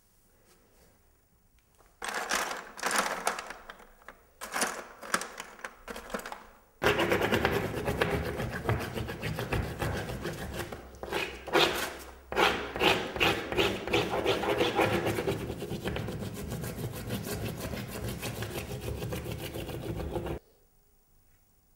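A painter's hand rubbing white paint into a painted canvas: a few separate scraping strokes from about two seconds in, then fast, continuous back-and-forth scrubbing from about seven seconds that stops suddenly near the end.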